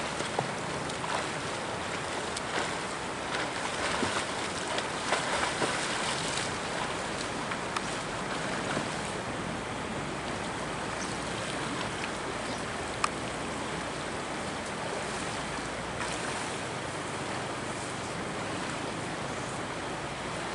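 A swimmer splashing through river water, the splashes thickest in the first several seconds, then a steady rushing wash of water noise as he reaches the shallows and wades. A single sharp click about thirteen seconds in.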